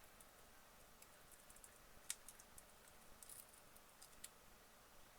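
Faint scattered clicks and ticks of an A13 tablet's glass touch panel being pried, bit by bit, off its plastic frame, with one sharper click about two seconds in.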